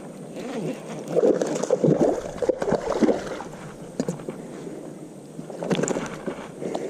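Creek water sloshing and splashing in irregular bursts, busiest in the first half and again near the end.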